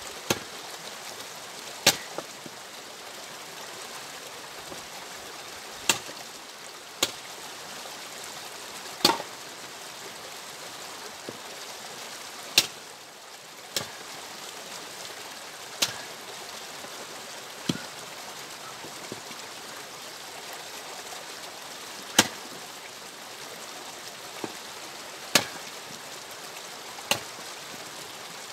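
An axe splitting firewood: about a dozen sharp wooden knocks and cracks, spaced irregularly one to several seconds apart, over a steady rushing background noise.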